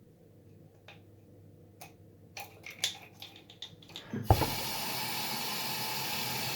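Small clicks and knocks of a plastic toy being handled, then a knock about four seconds in and a water tap running steadily.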